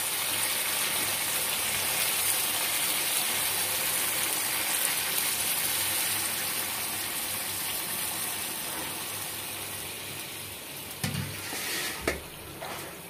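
Water poured from a bowl into a hot pan of chicken and potato curry: a steady pouring and sizzling hiss that fades over the last few seconds. A couple of short knocks come near the end.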